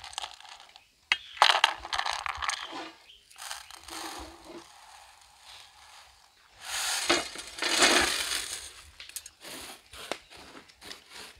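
Whole dry spices (cloves, star anise, fennel seeds) poured from a small plastic cap onto a steel plate, in a few bursts each a second or two long. Near the end come quick scattered clicks as seeds are spread by hand over a metal plate.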